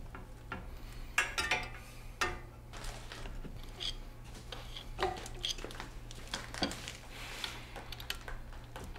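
Irregular small metallic clicks and clinks, a few ringing briefly, as a metal tool works on an old electric desk fan, over a steady low hum.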